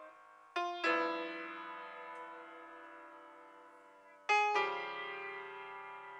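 Grand piano in solo free-jazz playing: two chords struck in quick succession about half a second in, left ringing and fading, then another pair just after four seconds in, again held and slowly dying away.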